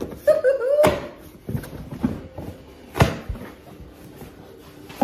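Cardboard shipping box being opened by hand: flaps rustling, folding back and knocking, with sharp knocks about a second in and again about three seconds in. A brief wavering squeak comes just before the first knock.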